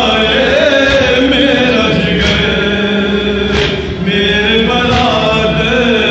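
Men chanting a noha together into a microphone, a mourning chant in unison. A sharp slap falls about every second and a half, the beat of chest-beating (matam) that goes with the chant.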